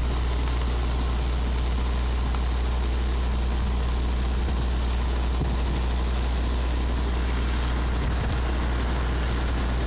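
An engine idling steadily: a constant low drone with a hiss over it that does not change.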